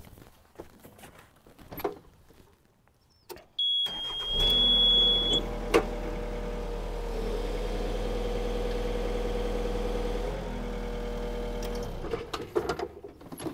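Yanmar ViO55 mini excavator's four-cylinder diesel started: a steady high beep sounds just before the engine catches about four seconds in, then it runs steadily for about seven seconds, its note shifting a little while the hydraulics raise the machine, and is shut off near the end. Light clicks and knocks come before the start.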